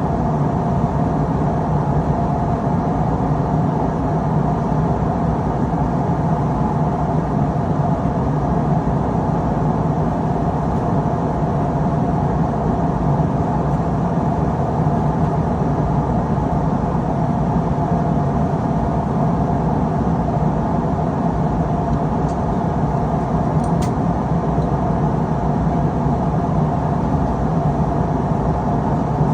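Steady cabin noise of a Boeing 777-200ER at cruise: an even rush of airflow with a constant low engine drone. A faint click sounds once, late on.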